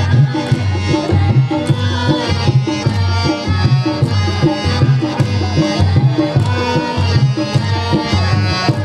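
Qawwali music: tabla playing a steady, repeating beat under group singing, with the chorus clapping along.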